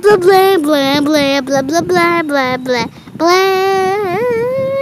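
A child's high voice singing without clear words: a run of short notes sliding down in pitch, then, after a brief break about three seconds in, one long held note that dips once.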